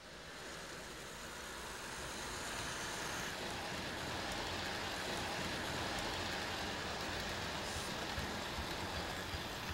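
Model electric train running along the layout's track: a steady rolling rumble of wheels on rails that builds over the first few seconds, then holds.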